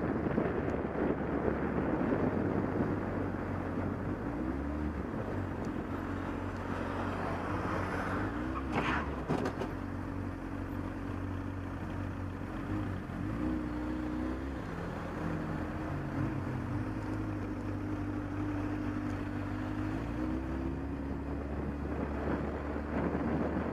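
Motorcycle engine running while riding, its pitch dipping and rising several times with throttle and gear changes. Wind noise on the microphone is heavier near the start and end.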